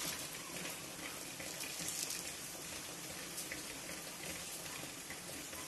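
Oil heating in a steel kadai on a gas stove: a steady hiss with a few faint scattered crackles as the oil nears frying heat.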